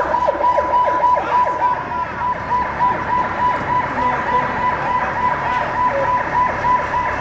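Police vehicle sirens sounding together: a fast yelping sweep over a steady pulsing tone that repeats about three times a second.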